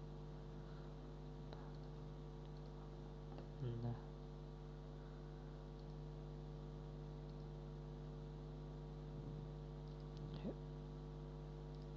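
Steady electrical mains hum: a low, even buzz with a stack of evenly spaced overtones. Two brief, faint sounds come through about four seconds in and again near ten and a half seconds.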